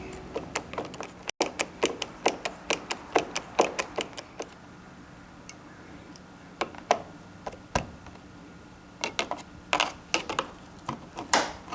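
Sharp metallic clicks from hand work on a door's lock strike plate and its screws as the old plate is taken off. The clicks come quickly for the first few seconds, then turn scattered, with a cluster near the end.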